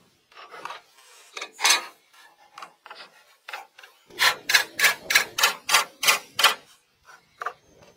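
Hand tool working wood: irregular scrapes and knocks, then a run of about nine quick, even rasping strokes, roughly four a second, about halfway through.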